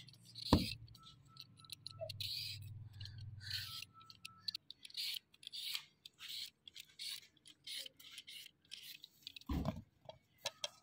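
Hand vegetable peeler scraping the skin off a cucumber in repeated short strokes, with a knock near the start and another near the end.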